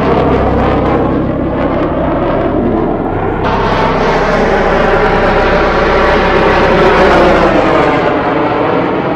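Roar of a formation of Blue Angels F/A-18 jets passing overhead, a continuous rushing jet noise with a slowly shifting pitch. It swells about a third of the way in and eases off near the end.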